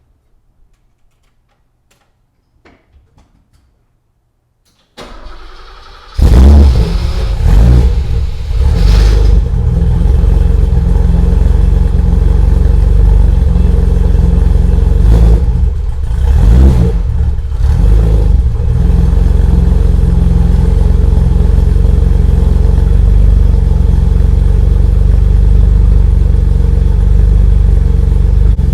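BMW E28's engine cranking on the starter about five seconds in and catching a second later. It runs unevenly for several seconds with a few throttle blips, then settles into a steady idle.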